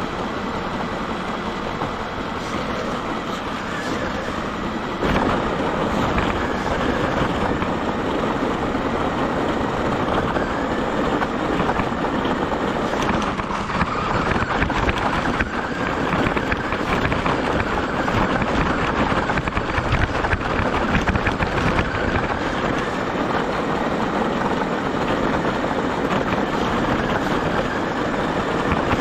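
Onboard sound of a radio-controlled car driving: a steady rush of tyre, chassis and motor noise that steps up louder about five seconds in.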